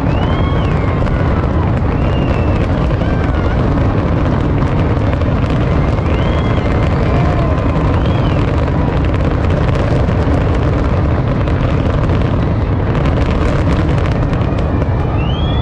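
Fireworks finale barrage: aerial shells bursting in rapid succession, their booms running together into one continuous loud rumble. A dense patch of crackling comes from about ten seconds in.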